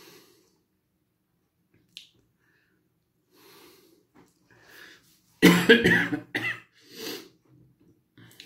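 A man coughing: a quick run of hard coughs about five seconds in, then one weaker cough, with a few soft breaths before them. The coughing is his throat reacting to very spicy instant noodles he has just eaten.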